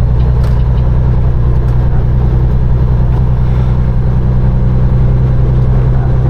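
Peterbilt 389 semi truck's diesel engine running steadily while driving, heard inside the cab as a deep, even drone.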